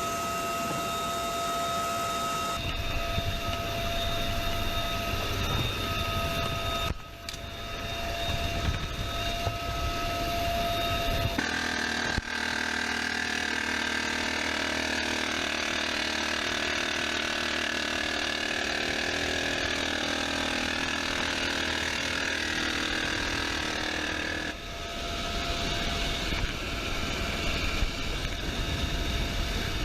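Helicopter engine and rotor running steadily: a low rumble with a high turbine whine, changing abruptly at a few cuts. No gunfire is heard.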